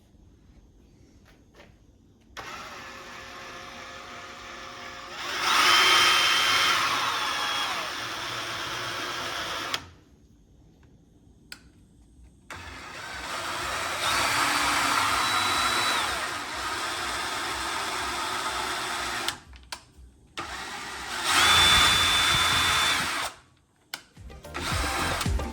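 A power tool or motor running in three separate runs with short pauses between, a noisy whir carrying a high whining tone that steps slightly in pitch and glides at the start and end of each run.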